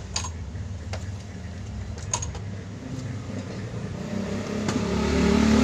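An engine running steadily, getting louder and rising in pitch from about four seconds in, with a few light clicks early on.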